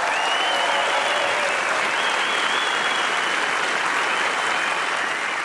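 Concert audience applauding steadily, with long high whistles over the clapping.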